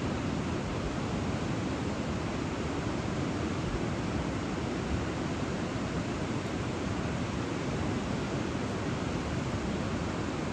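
Ocean surf breaking on a sandy beach: a steady, even rushing noise with no single wave standing out.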